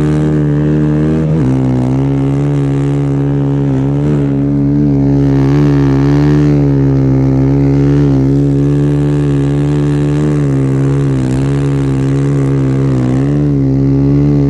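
Snowbike engine (a dirt bike converted with a snow track kit) running steadily under load on an uphill climb, its pitch dropping once about a second in and then holding with small wobbles.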